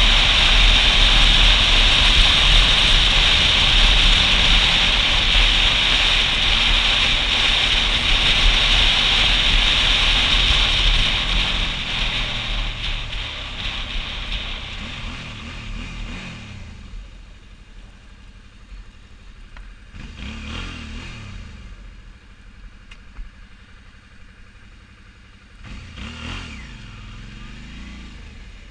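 Motorcycle ridden at speed, with heavy wind and road noise on the microphone, which dies away about halfway through as the bike slows. The engine is then heard more plainly, its revs dipping and rising twice as it slows toward an intersection.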